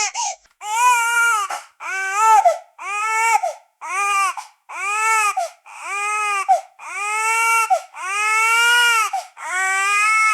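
Newborn baby crying in a steady run of wails, about one a second, each rising and falling in pitch, with short breaths between them.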